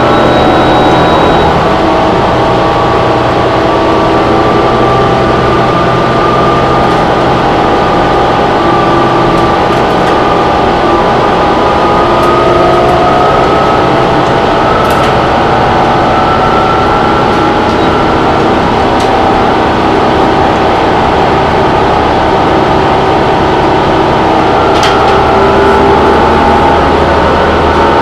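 Cummins ISL9 inline-six diesel engine and Allison automatic transmission of a New Flyer Xcelsior XD40 bus, heard from inside the passenger cabin as the bus drives along. A steady low rumble runs under a whine whose pitch slowly rises and falls with road speed, with a couple of sharp clicks from the cabin.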